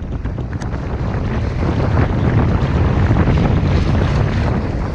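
Steady wind noise buffeting the microphone, over sea waves washing and splashing across a submerged concrete ledge.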